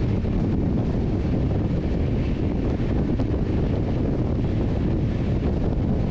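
Wind buffeting the microphone held out the open door of a fast-moving passenger train, over the steady rumble of the coach running on the rails.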